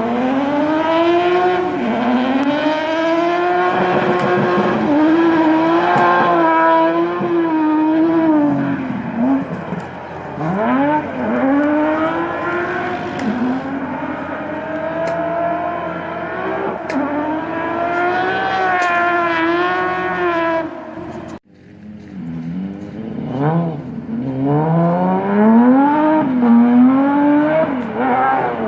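Peugeot 3008 Trophée Andros ice-racing car's engine, revving up and down again and again as it is driven hard around the circuit. The sound cuts out sharply for a moment about three quarters of the way through, then the revving picks up again.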